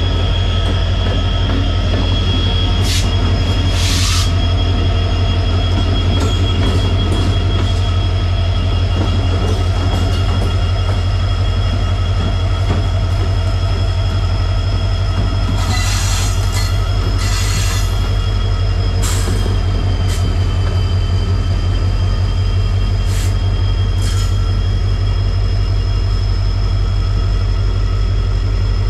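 A passenger train running: a steady heavy low rumble with a thin high squeal held throughout, and scattered short clanks and rattles, bunched about sixteen seconds in.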